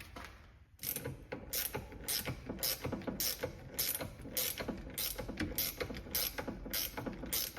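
Ratchet wrench clicking in a steady rhythm, about two clicks a second, as it turns a threaded press tool that draws an STI steering rack bushing into the rack's bore.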